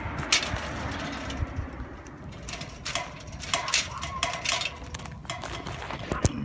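Phone handling noise: rubbing, scraping and knocks against the microphone as the phone swings in a hand or against clothing while being carried.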